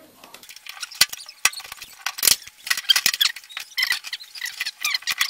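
Plastic crinkling and crackling in quick irregular clicks, with a couple of sharper knocks, as plastic blanking plugs are pushed into the transit-bolt holes on the back panel of a washing machine.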